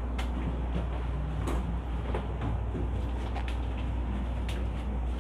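Steady low drone of the tanker's machinery throughout the accommodation, with a few sharp knocks and footsteps as a steel cabin door is pushed open and someone goes down a stairway.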